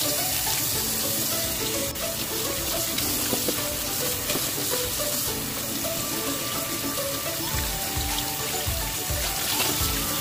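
Kitchen tap running steadily into a stainless steel sink as a raw pork shoulder is rinsed under the stream, with background music playing.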